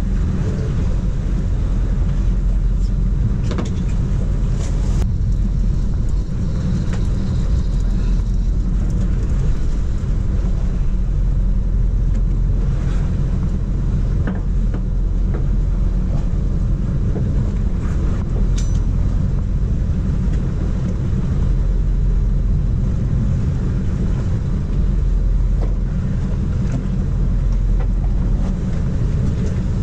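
Boat engine running steadily with a deep, even hum, and a few light knocks on deck.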